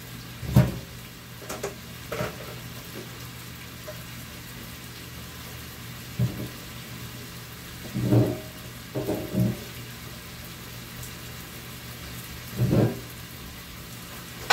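Faint steady sizzle of food frying in a pan on a gas burner, with a few dull knocks and bumps now and then.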